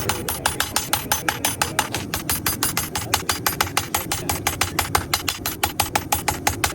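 Fast, evenly spaced hammer blows on steel being forged into an axe head, about seven strikes a second, at the steady pace of a mechanical power hammer.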